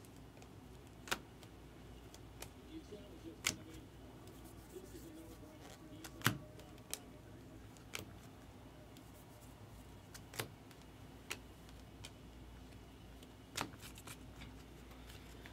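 Baseball cards being flicked one at a time off a stack held in the hand: short sharp clicks at uneven intervals of one to three seconds, over a low steady hum.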